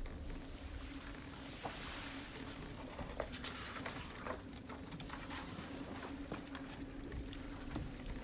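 Paper pages of a hardcover book being turned and flicked by hand: soft rustling and fluttering with many quick crisp clicks, then the book being handled and shut.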